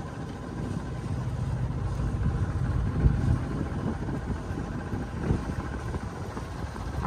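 Sailboat's diesel engine running steadily while motoring, a low rumble with a short thump about three seconds in.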